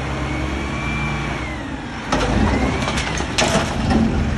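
Front-loader garbage truck's engine running under load as its hydraulic arms lift a dumpster over the cab, with a faint whine that rises and falls. About halfway through come loud clattering and several bangs as the dumpster is tipped and trash drops into the hopper.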